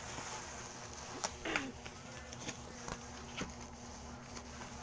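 Black bubble-wrap packaging being pulled and torn open by hand: crinkling with a few sharp crackles, and a brief falling squeak about a second and a half in.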